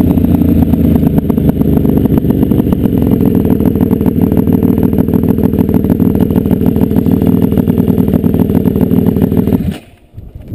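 Dirt bike engine running loud at a steady speed, its rapid firing pulses heard from the rider's helmet camera. Near the end it cuts off abruptly as the bike comes to a stop.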